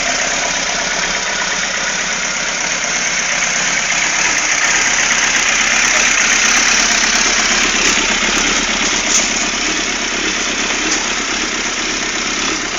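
Suzuki GSX-R inline-four motorcycle engine idling steadily, running evenly with no coughing or misfiring.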